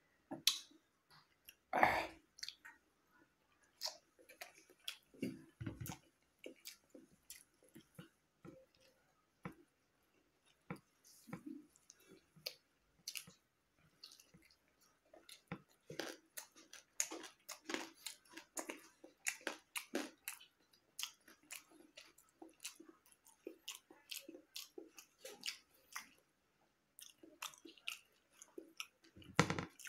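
Close-miked mouth sounds of a person chewing boiled egg and rice: a steady run of wet smacks and clicks, with a few louder sounds about two seconds in, around five seconds in and near the end.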